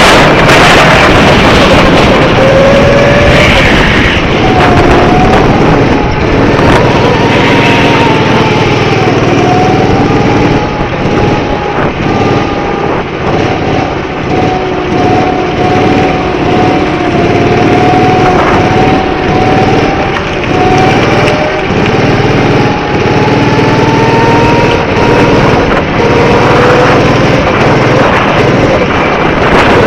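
Go-kart engine running under way, its pitch rising and falling as the kart speeds up and slows, with a lower, longer drop near the end.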